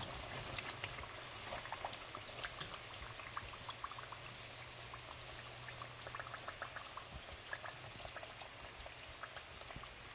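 Potato bhajias deep-frying in hot oil: a steady sizzle dotted with many small crackles and pops.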